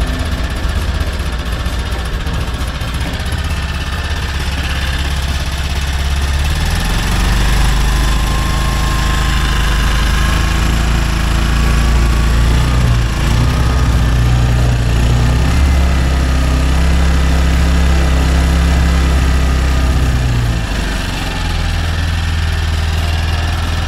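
Denyo GE-550 portable generator's small Robin engine running, its speed stepping up about seven seconds in, wavering, and dropping back near the end. It cannot come up to working speed because the governor spring has come off, so the generator makes no power.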